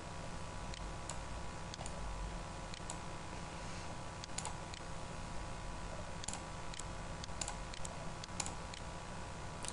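Computer mouse clicking: a scattering of short, sharp clicks, a little denser in the second half, over a steady low hum.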